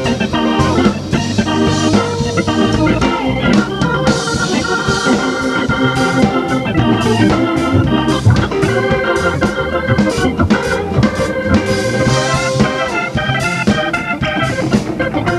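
Live band playing an instrumental passage, with organ standing out over electric guitar and a steady drum beat.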